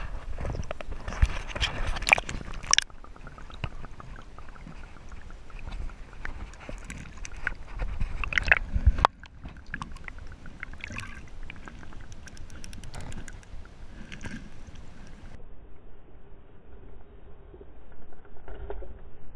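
Water splashing and sloshing around a GoPro as it goes into a creek, then the muffled sound of the camera underwater, with scattered clicks and knocks.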